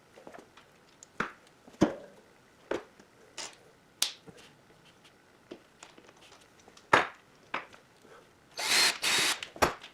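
Workshop handling noises: scattered clicks and knocks as tools and the plastic air line are picked up and moved, with two short rushing bursts near the end.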